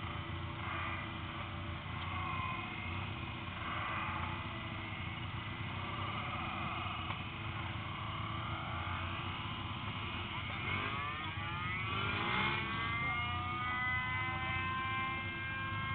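Kart cross engines running on the grid, a steady low idle with other engines blipping in the background. About eleven seconds in, one engine revs and its pitch climbs steadily.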